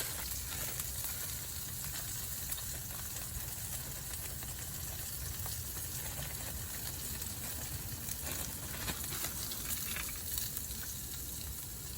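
Chicken frying in a pan over a campfire: a steady sizzle with a few faint ticks and pops.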